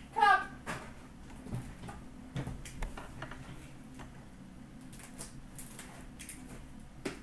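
Handling and opening a sealed trading-card box: scattered light clicks, taps and scrapes of cardboard and plastic packaging.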